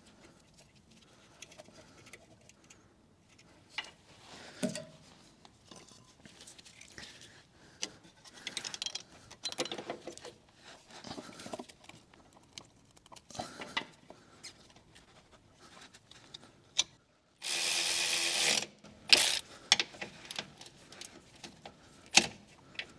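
Hand-tool work on the car's auxiliary water pump and its metal bracket: scattered clicks, clinks and metal knocks while the pump is bolted in. About two-thirds of the way through there is one loud, even burst of noise lasting about a second.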